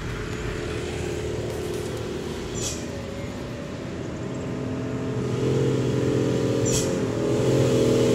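Diesel engine of a Hino cargo truck pulling through a bend toward the listener, growing steadily louder as it approaches.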